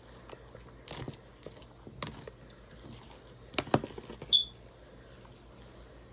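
A person chewing a mouthful of crunchy Cap'n Crunch cereal close to the microphone. A few sharp crunches come about one, two and three and a half seconds in, then a short high ring near four seconds, with quieter chewing after.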